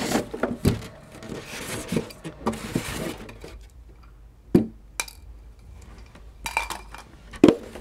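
Unpacking noise: a styrofoam packing insert rubbing against its cardboard box while drone landing-gear parts are handled. Scattered light clicks and knocks, the sharpest about four and a half seconds in and again near the end.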